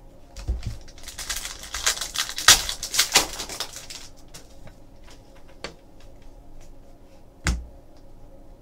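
Trading cards being handled: a quick run of crackling clicks and rustling for a few seconds as a stack of cards is flipped through, then a few light taps and one knock near the end.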